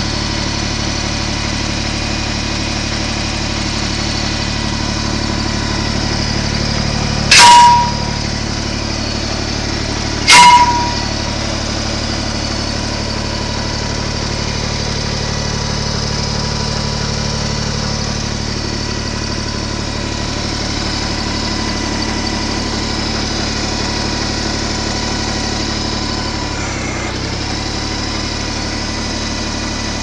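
Compact tractor engine idling steadily. Two loud, sharp bangs cut through it about three seconds apart.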